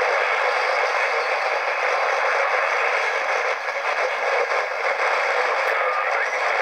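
Portable radio's small speaker hissing with static while being tuned between stations, a steady rushing noise with a faint short whistle near the end.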